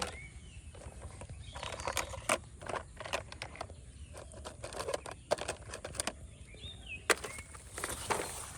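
Plastic toys being handled and set down: scattered light clicks and knocks at an irregular pace.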